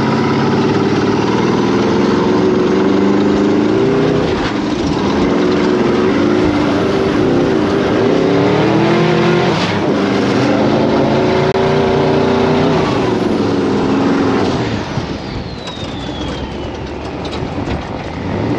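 High-horsepower off-road sand car engine running hard under load, its revs repeatedly climbing and dropping back, then easing off near the end.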